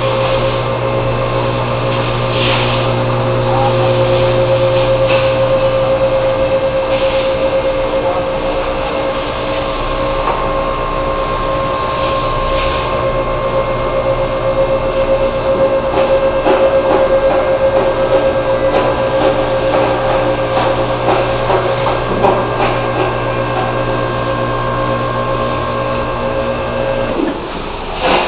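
A machine running with a steady hum, with some light knocking over it; it cuts off about a second before the end.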